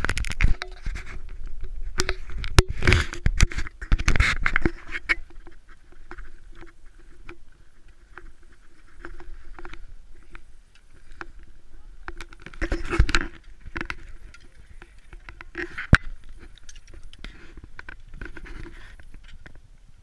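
Boots and gear crunching and scraping through deep, trampled snow in irregular steps, heard from a camera worn by someone walking. The loudest bursts come about three to five seconds in and again around thirteen seconds, with a sharp click near the end.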